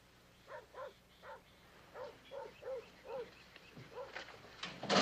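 A dog barking faintly in a quick series of about a dozen short barks.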